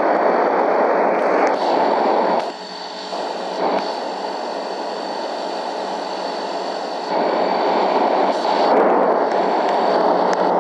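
Air conditioner running with a steady whooshing noise and a faint high whine. From about two and a half seconds in, the sound drops and thins for some four seconds, then returns to full strength.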